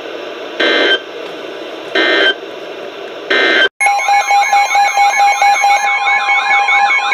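NOAA Weather Radio SAME end-of-message data bursts: three short electronic screeches about a second and a half apart over radio static, marking the end of a warning broadcast. After a brief cut, about halfway in, an electronic alert alarm begins: steady tones with repeating warbling sweeps over them, as a new emergency alert starts.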